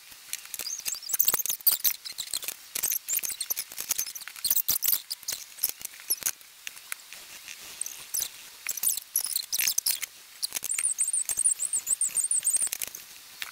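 Felt-tip markers scribbling quickly on paper: a dense run of short, scratchy strokes. Near the end a marker tip gives a high, wavering squeak for about two seconds.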